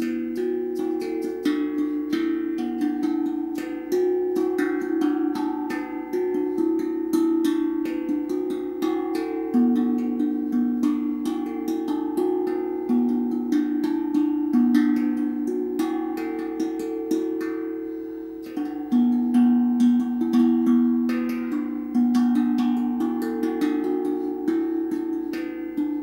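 Homemade steel tongue drum, made from two deep steel frying pans (kadai) welded together, played with the fingertips. A continuous melody of struck, ringing notes that overlap one another.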